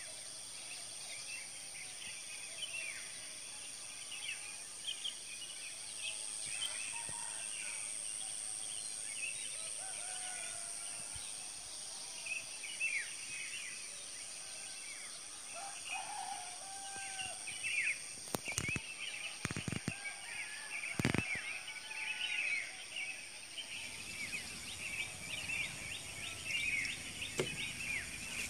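Outdoor chorus of many small birds chirping and trilling at dusk, a few lower whistled calls among them, over a steady high-pitched drone. Three sharp clicks fall in the second half.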